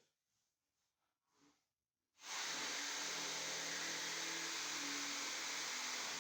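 Electric power saw cutting wood, switching on abruptly about two seconds in and then running steadily with an even, hissing noise.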